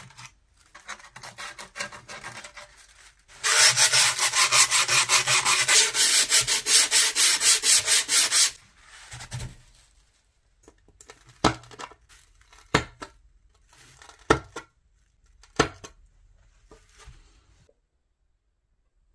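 Handsaw rubbed back and forth along the edge of skateboard grip tape against the wooden deck: soft strokes at first, then about five seconds of loud, fast strokes, followed by a few separate sharp knocks.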